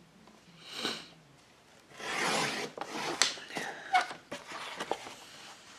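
A sliding-blade paper trimmer cuts through thick paper that is collaged on both sides, making a short rasping swish about two seconds in. Around it the paper rubs and slides across the trimmer, with a few light clicks.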